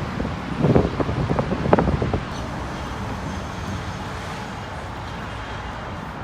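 Wind buffeting the microphone in a few rough gusts during the first two seconds, then a steady background rush of noise.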